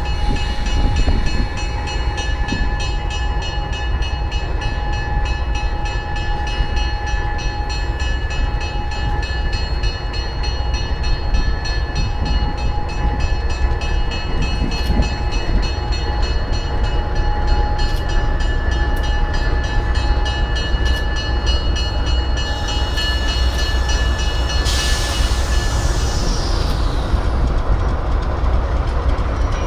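Train running close by: a steady, loud low rumble with several steady high-pitched tones over it and a few sharp clicks. Near the end a burst of hissing comes in.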